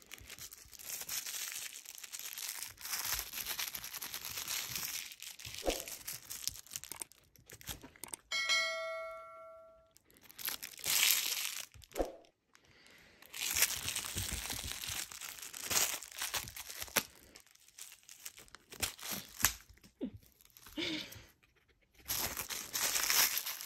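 Crinkly plastic candy wrapper crackling and rustling in bursts with short pauses as a red fox chews and tugs at it. A single ringing chime sounds about a third of the way through.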